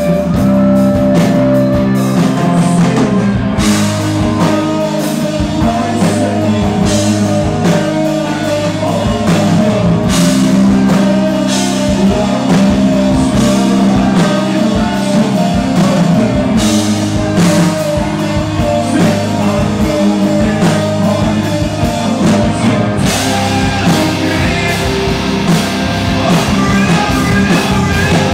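Live hard rock band playing loud: distorted electric guitars, bass and drums with a singer's vocals.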